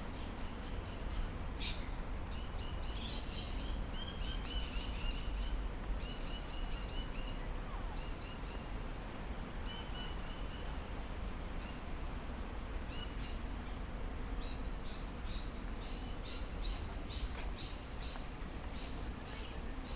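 Small birds chirping in short repeated bursts of high notes, with a steady high hiss joining for several seconds in the middle, over a low steady background rumble.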